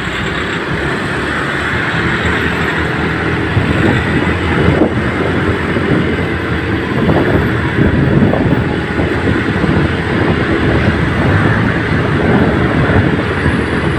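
Steady wind and road noise from riding a motorcycle through traffic, with the engine running underneath and growing a little louder a few seconds in.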